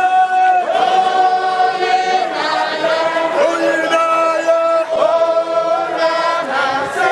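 A group of voices chanting or singing together, holding long drawn-out notes that shift in pitch every second or two.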